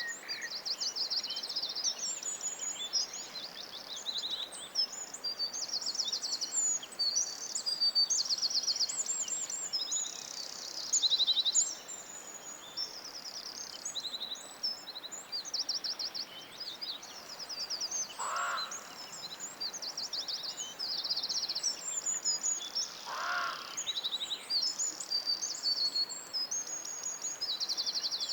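Songbirds singing together in a dense forest chorus: overlapping high trills and quick whistled phrases. A lower, falling call cuts through twice, about two-thirds of the way in and again five seconds later.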